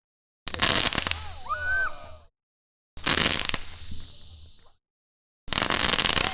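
Small store-bought shower-of-sparks fireworks spraying, heard as three separate bursts of sharp crackling hiss. Each starts suddenly and fades out within about two seconds, with dead silence between them. A brief pitched sound rises near the end of the first burst, and falling pitched tones sound over the last.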